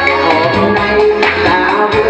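Woman singing a cheerful song into a microphone, accompanied by an electronic keyboard with a steady drum beat of about four strokes a second.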